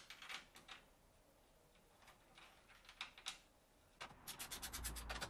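Quiet scattered clicks and taps of a metal bracket and its bolt being handled, then from about four seconds in a fast, even ratcheting click, about ten a second, as a fastener on the snorkel intake's upper mounting bracket is run in.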